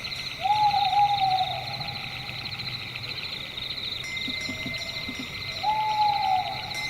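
Night ambience: an owl hooting twice, each call about a second long and dropping slightly in pitch, one near the start and one near the end, over a steady chorus of insects chirping.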